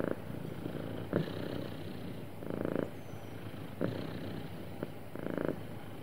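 Domestic cat purring steadily, the purr swelling louder about every two and a half seconds with its breathing, and a couple of short sharp clicks between the swells.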